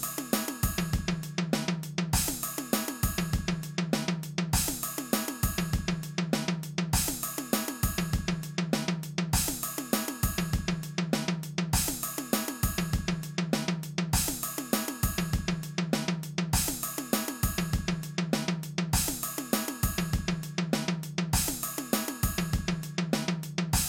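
Background music: a steady drum-kit beat with cymbals and hi-hat over a low bass line, repeating in an even loop.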